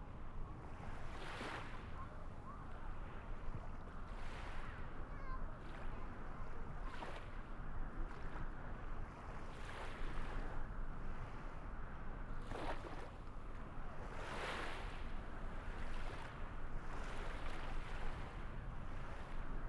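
Steady wash of water noise, with a surge like a small wave breaking every two to three seconds.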